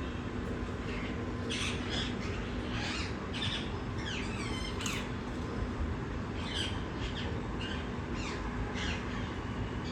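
Parrots squawking: short, harsh, high calls in two bursts, the first about a second and a half in and the second just past the middle, over a steady low background rumble.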